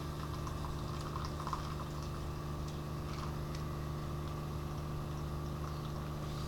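Keurig coffee maker brewing: its pump humming steadily with water gurgling through, with a few faint clicks and drips. The hum stops suddenly right at the end, as the brew cycle finishes.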